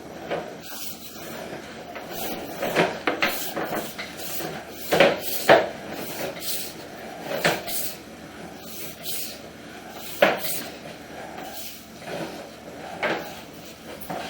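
Sewer inspection camera equipment being pushed down a sewer main: a dozen or so irregular knocks and clunks over a low hiss.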